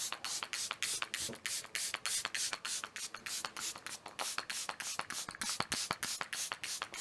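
Pump spray bottle of nettle hydrolat squeezed over and over, a rapid run of short hissing mist sprays at about five or six a second.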